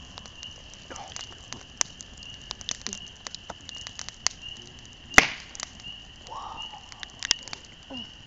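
Wood fire crackling and popping in irregular sharp snaps, with one loud crack about five seconds in. A steady, high, pulsing insect chirp, like crickets, runs underneath.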